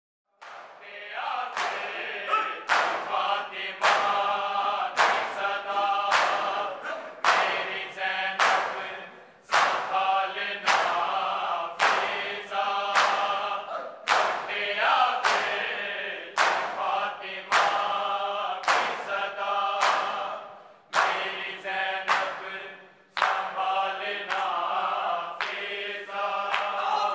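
Men's voices chanting a noha in unison over a steady beat of sharp hand-on-chest slaps (matam), struck in time with the chant. It starts about half a second in.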